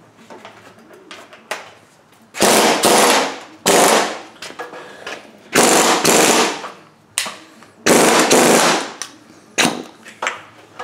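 Ingersoll Rand 231 half-inch pneumatic impact wrench, rebuilt with a six-vane rotor and ported, triggered in four loud bursts of about a second each, with a shorter burst near the end. It runs on an air tank that the owner reckons is down to about 50 PSI.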